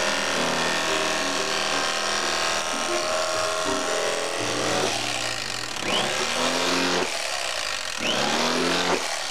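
Electric carving knife running steadily as it slices through smoked brisket into the fatty section.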